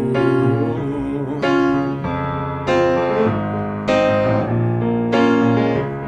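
Grand piano played solo: a chord struck about every second and a quarter, each left ringing into the next.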